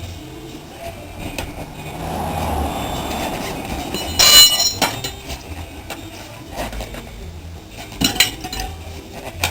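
Metal tools clinking and knocking while a moped tyre is being fitted: a rough scraping swell, then one loud ringing metallic clink about four seconds in, and a few lighter knocks near the end.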